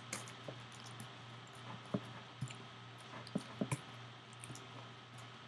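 Faint, scattered clicks and soft squishy sounds from handling a bowl of sticky melted marshmallow and hot fudge, over a low steady hum.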